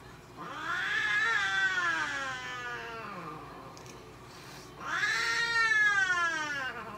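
A long-haired mixed-breed cat yowling while held down for a claw trim. There are two long drawn-out cries: the first rises and then slowly sinks in pitch over about three seconds, and the second starts near the end and is still going as it ends.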